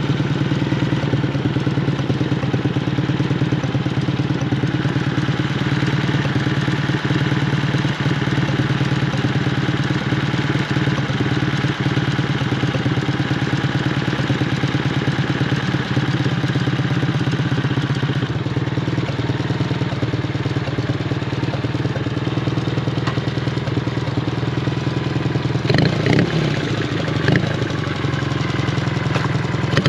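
Dněpr K-650 motorcycle's flat-twin engine idling steadily. Near the end the engine note rises and falls a few times.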